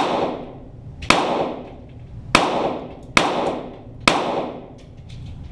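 .22 Walther GSP target pistols firing four shots, roughly a second apart, each ringing off in a long echoing tail of an indoor range, heard from beside the target.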